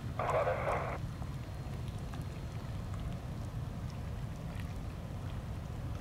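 A radio voice with a thin, narrow tone, typical of air-band radio heard through a scanner, cuts off about a second in. After it comes a steady low rumble with faint scattered ticks.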